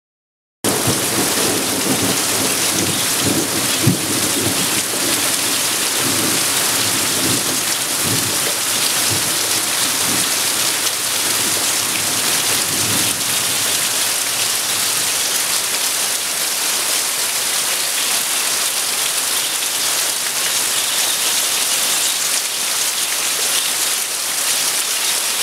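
Heavy rain pouring steadily, with water streaming off the edge of a corrugated roof. It begins abruptly about half a second in, and a low rumble runs under it through the first half before fading out.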